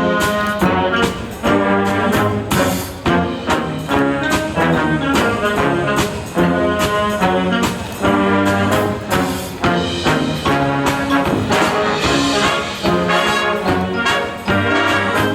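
High school marching band playing brass music with drums: trumpets and trombones over a steady, driving beat.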